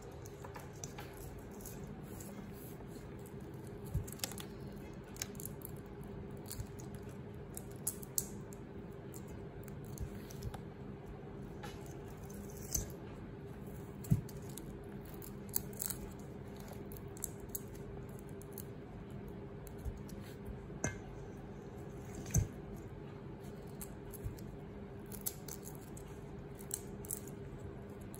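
Shrimp being peeled by hand: scattered small clicks, crackles and snips as shells are pulled off, a few a second at most and irregular. Under them runs a steady low hum.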